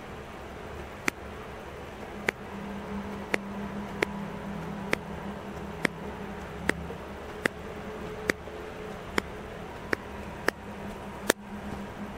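Camera shutter-speed and ISO dial wheel clicking through its detent steps, about a dozen single clicks roughly one a second, the loudest near the end, over a steady low hum.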